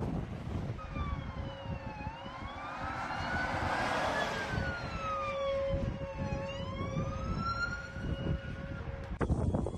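A siren wailing, its pitch rising and falling slowly, about once every four seconds, over a steady lower tone, with wind buffeting the microphone.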